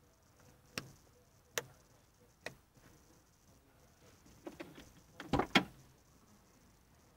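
Three sharp clicks, about a second apart, then a cluster of louder clicks and knocks around five seconds in: hand handling around a car's plastic ceiling-light housing.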